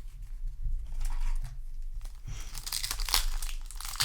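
Foil booster pack wrapper crinkling as it is handled and torn open, the crackling getting louder and denser about halfway through.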